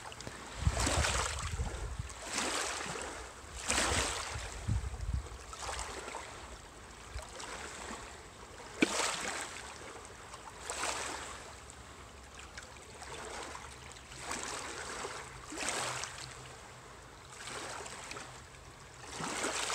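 Small waves lapping in shallow water, a soft wash that swells and fades every second or two.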